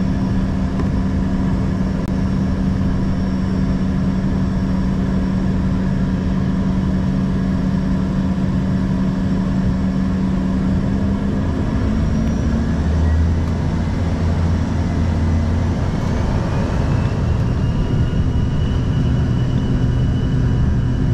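The Embraer ERJ 145's Rolls-Royce AE 3007 turbofans are heard from inside the cabin. They run steadily at low power at first; a little past halfway they spool up to takeoff thrust, with a rising whine that levels off into a steady high tone over a heavier rumble as the jet starts its takeoff roll.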